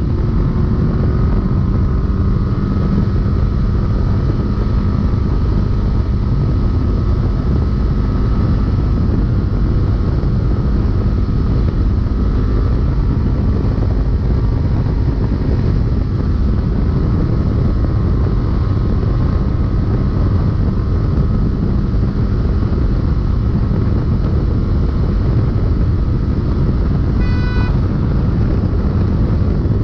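Polaris UTV running hard at a steady pace, heard from inside the vehicle: a constant loud engine and drivetrain drone mixed with heavy rumble and rattle from the chassis over rough ground.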